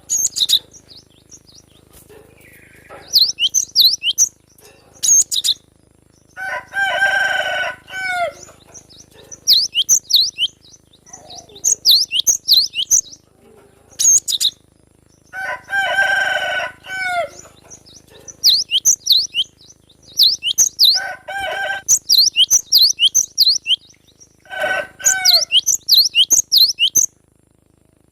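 Cinereous tit (glatik batu) singing: repeated quick series of high, sharp chirping notes, with short pauses between phrases. Lower, longer calls come in about four times.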